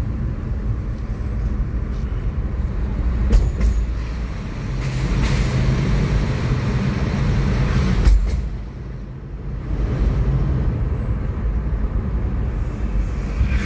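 Running noise of a car heard from inside the cabin while driving: a steady low engine and road rumble, with a louder hiss swelling for a few seconds in the middle.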